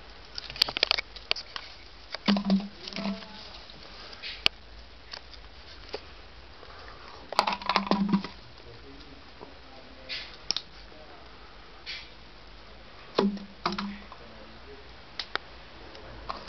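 Dry ornamental grass rustling and crackling as an English Springer Spaniel puppy digs and tugs at the clump, in several short bursts with quieter gaps between.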